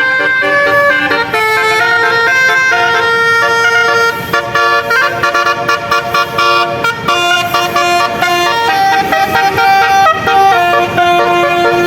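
Bus 'telolet basuri' musical air horn playing a song melody, held notes stepping up and down in pitch without a break.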